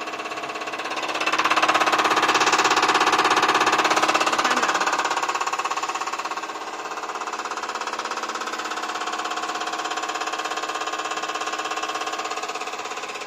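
CR966 common rail injector test bench running an injector test, its motor-driven high-pressure pump and the firing injector making a steady pitched drone with a fast pulsing rattle. It gets louder about a second in and eases back after about five seconds.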